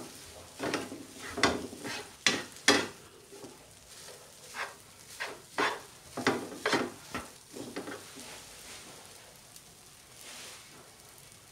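Fried rice being stirred and tossed with a spatula in a nonstick frying pan: a run of irregular scraping strokes against the pan that stops about eight seconds in, leaving a faint frying sizzle.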